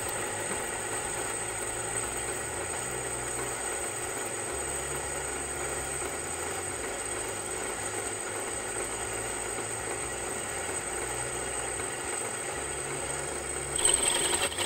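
Drill press running a 5.5 mm bit through an iron threaded pipe reducer, a steady motor hum and cutting noise. About a second before the end it grows louder, with an added higher-pitched tone.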